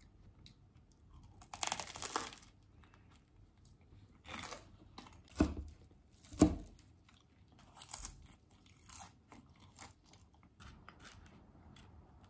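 Close-up eating sounds: crunchy bites into toast and salad and chewing, in separate bursts of a second or less. Two sharp clicks near the middle are the loudest sounds.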